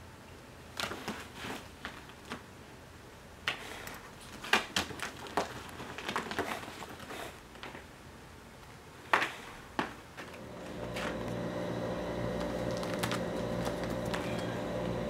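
A kitten's claws catching and scratching on curtain fabric as it climbs, giving scattered clicks and short rustles. About two-thirds of the way in, a steady mechanical hum starts and keeps going.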